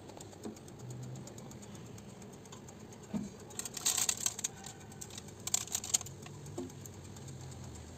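Baking paper lining a cake tin crinkling under fingers in two short bursts, about four and five and a half seconds in, over a low steady hum.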